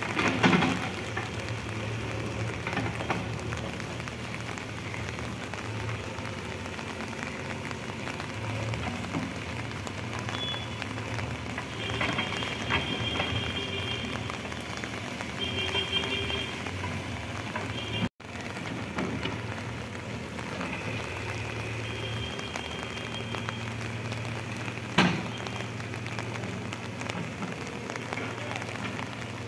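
Steady rain hiss over the low, steady drone of a JCB 3DX backhoe loader's diesel engine as it digs in wet mud. A sharp knock comes just after the start and another about 25 seconds in.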